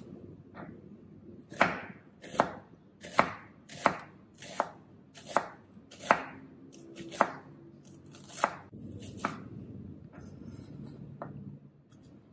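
Knife slicing a red onion on a bamboo cutting board: a regular series of sharp knife strikes on the board, about one every three-quarters of a second. Near the end the strikes give way to a softer rustle.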